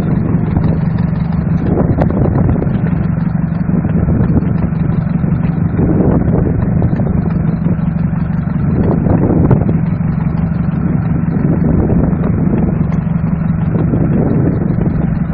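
A small wooden fishing boat's engine running steadily, with a constant low tone and a few louder rushes of noise over it.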